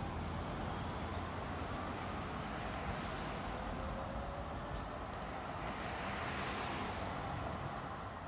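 Steady hum of distant road traffic, an even rushing noise with a low rumble underneath.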